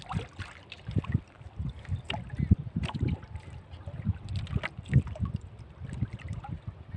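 Water slapping and lapping against the hull of a small outrigger boat at sea, as irregular low thuds with a few sharper knocks, over wind on the microphone.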